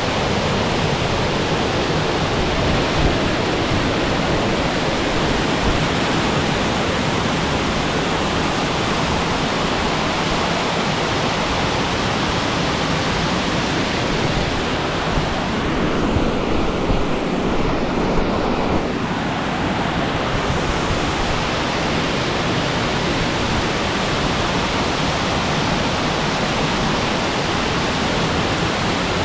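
Gooseberry River waterfall pouring over rock ledges, heard close up as a loud, steady rush of falling water. The hiss thins for a few seconds about halfway through.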